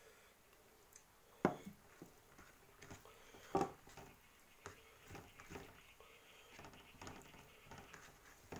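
Two louder knocks of a small steel bowl, about a second and a half in and again near four seconds, as it is tapped on the plate and set down on the table. Between and after them come soft clicks and squishing of fingers mixing rice on a paper plate.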